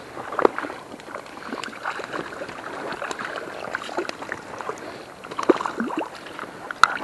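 River water sloshing and splashing, with irregular sharp splashes: a strong one about half a second in, others around five and a half seconds, and one near the end.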